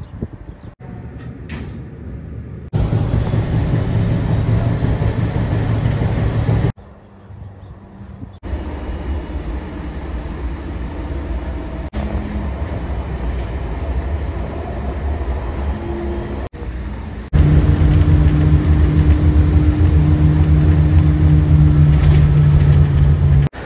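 Steady low rumbling noise, broken by several abrupt cuts: a light-rail train running, then road traffic, with a steady droning tone over the rumble for the last six seconds or so.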